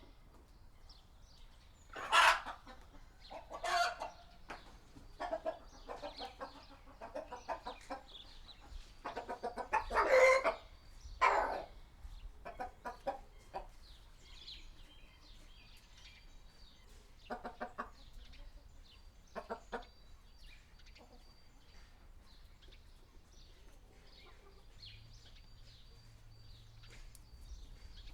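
Hens clucking in a small coop: scattered calls and quick runs of clucks, the loudest about a third of the way in, growing sparser and fainter in the second half.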